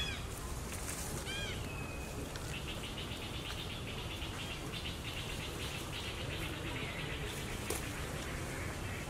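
Outdoor ambience with short, high chirping animal calls, then a fast high-pitched trill of clicks from about two seconds in until near the end, over a steady low rumble.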